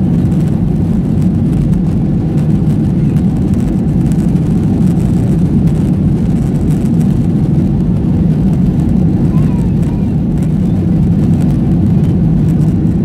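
Steady low rumble of a Boeing 737's jet engines and airflow heard from inside the passenger cabin, while the airliner is on the runway before lifting off.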